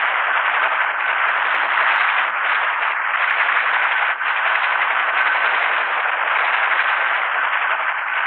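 Steady, even rushing noise of a running Bell AH-1 Cobra helicopter, with a faint steady whine.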